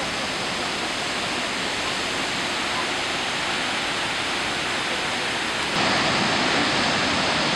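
Large waterfall: a steady, heavy rushing of falling water and spray that steps louder about six seconds in.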